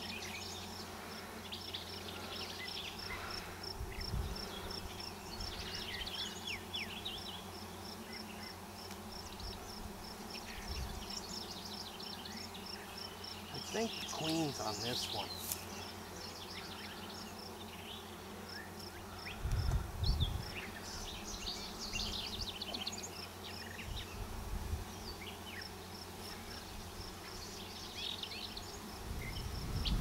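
Honeybee colony humming steadily from an open hive as its frames are worked, audible but not loud, the hum of a colony that is not stirred up to defend its hive. A faint regular high chirping runs over it, with scattered higher chirps and a few low thumps, the strongest about twenty seconds in.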